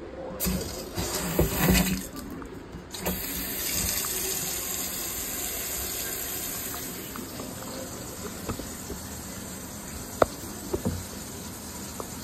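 Kitchen faucet running water into the sink, a steady rushing from about three seconds in that slowly eases. A few knocks in the first two seconds and one sharp click near the end.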